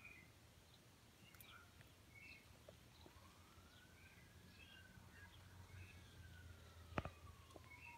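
Faint outdoor ambience: small birds chirping over and over, and a distant siren that slowly rises and then falls in pitch from about three seconds in. A single sharp click sounds about seven seconds in.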